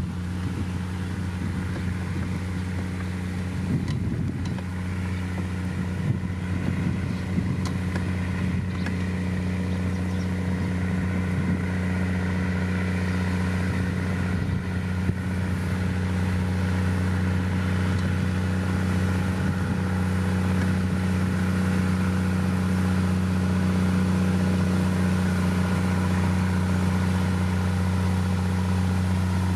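Heavy diesel engine of road-building machinery running steadily under load, with a few light knocks and clatters in the first ten seconds.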